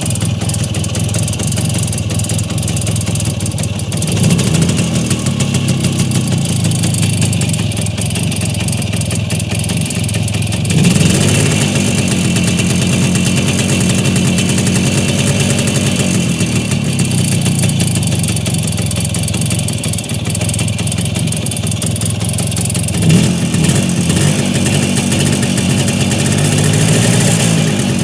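Voskhod motorcycle's single-cylinder two-stroke engine running steadily at idle, revved briefly a few times, with a knock in the engine.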